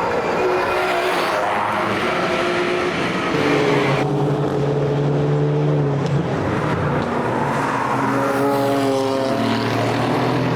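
Race car engines passing in turn at full throttle, revving and changing pitch as they accelerate and shift through a twisty section. A new engine note rises about eight seconds in.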